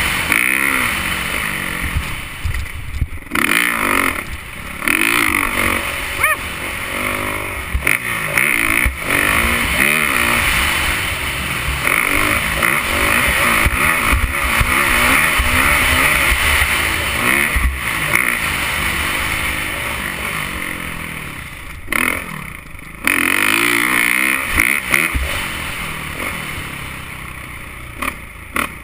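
Motocross dirt bike engine revving hard and easing off again and again as it is ridden over a dirt track, heard from on the bike. Its pitch climbs and falls with the throttle, and the sound drops away briefly where the throttle is shut, about three and four seconds in and again around twenty-two seconds.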